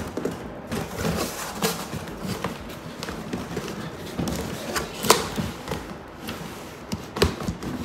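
Cardboard boxes being handled: scraping, rubbing and bumping as a toy box is slid out of its corrugated shipping carton and turned over, with sharper knocks about five and seven seconds in.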